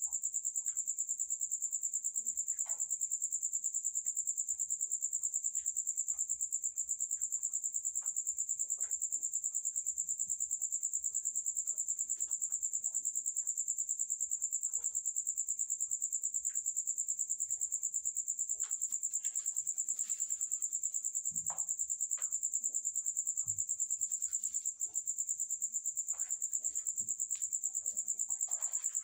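Crickets trilling in a steady, high-pitched, rapidly pulsing chorus. Faint scattered clicks and rustles come from rabbits feeding at a pellet ring on straw bedding.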